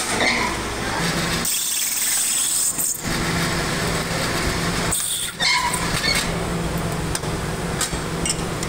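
Workshop machinery running with a steady low hum under a noisy clatter. The sound changes abruptly a few times, with a high hiss for a second or two about a second and a half in.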